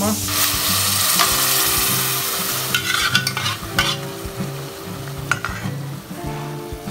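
Butter and fresh herbs (oregano and rosemary) sizzling in a hot pot, loudest at first. Then blended tomato is poured in and stirred with a metal spoon: the sizzle dies down, with a few clinks of the spoon against the pot.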